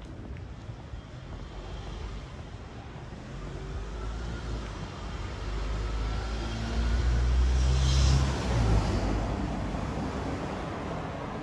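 A motor vehicle driving past: its low engine rumble grows louder over several seconds, peaks about two-thirds of the way in, then fades away.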